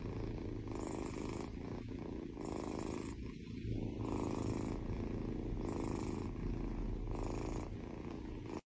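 Black-and-white kitten purring steadily as it is stroked. The purr swells and eases in regular waves about every couple of seconds.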